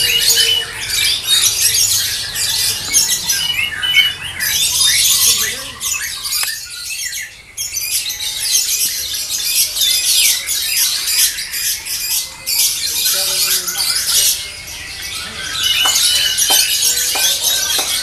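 Caged lovebirds chattering and screeching in a dense, rapid, high-pitched stream, dipping briefly a couple of times.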